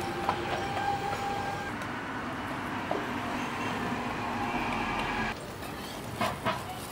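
Steady street-traffic rumble that drops away suddenly about five seconds in, followed near the end by a few short scrapes and taps of a metal spatula on a jianbing griddle.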